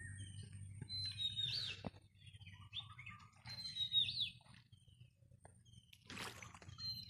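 Birds calling: a high whistled call that ends in a quick downward hook repeats every few seconds, with scattered smaller chirps between.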